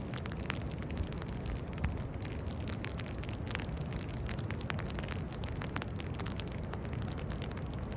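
Steady outdoor noise with a low rumble and many scattered crackling ticks.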